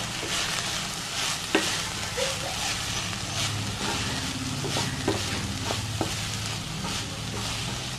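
Wooden spatula stirring and scraping a dry ivy gourd and coconut stir-fry around a kadai, about two strokes a second, over sizzling in the pan. A few sharp knocks of the spatula on the pan come through.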